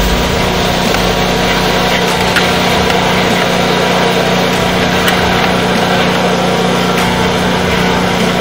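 A small engine running steadily, its even hum under a dense, noisy rattle.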